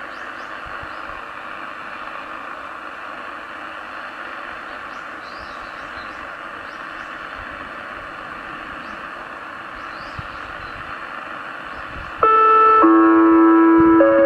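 Steady outdoor background hiss with a few faint high chirps. About twelve seconds in, a municipal disaster-prevention outdoor loudspeaker (Toshiba sound source, analog system) starts its chime: loud, sustained bell-like tones sounding together, with more notes entering a moment later.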